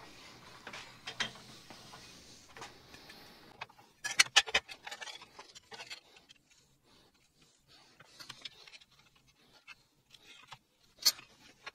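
Light metallic clicks and knocks of a sheet-metal folder and a small aluminium bracket being handled and set up for a bend. There is a quick run of sharp clicks about four seconds in and a single sharp click near the end.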